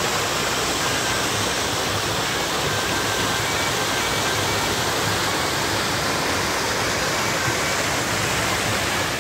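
A small waterfall and the stream below it, rushing water making a steady, even noise.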